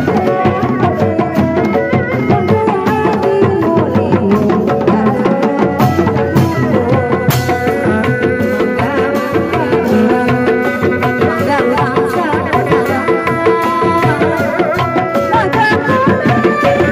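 Sundanese dog-dog street drumming: laced hand drums struck with the palms and a large barrel drum beaten with a stick, in a fast, dense rhythm. A sustained, wavering melody is held over the drums.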